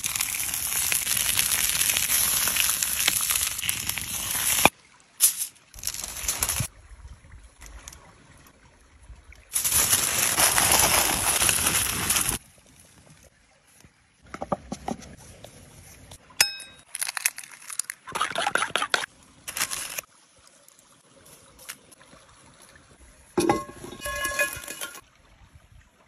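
Raw steak sizzling on a hot stone slab over a wood fire, in two loud stretches that cut off abruptly. Between them come scattered taps and clinks of handling, with a short ringing clink near the end.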